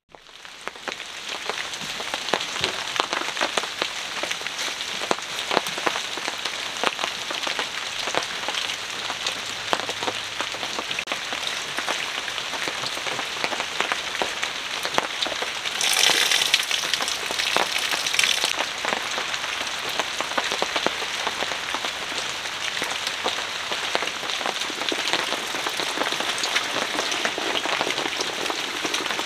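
Steady rain pattering on the fabric awning overhead, a dense run of sharp drop hits. It fades in at the start and swells louder for a couple of seconds about halfway through.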